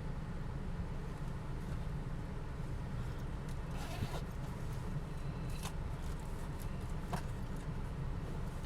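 Steady low rumble inside a car, with three short, soft noises spaced through the middle, the first with a small click.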